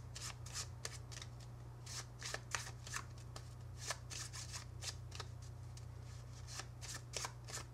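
A deck of playing cards being shuffled by hand: a run of soft, irregular flicks and slaps of cards, several a second.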